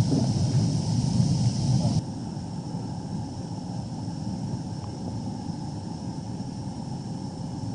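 Concrete spa's jets and aeration churning the water: a steady rushing noise, loud close over the water, then dropping to a softer, more distant rush about two seconds in.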